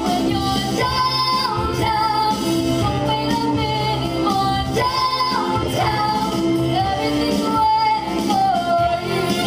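A woman singing a song into a handheld microphone over instrumental accompaniment, holding long notes that step up and down in pitch.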